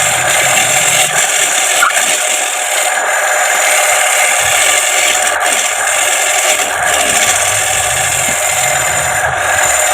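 Homemade wood lathe running with a wooden plate being worked on it, giving a steady, loud rasping noise.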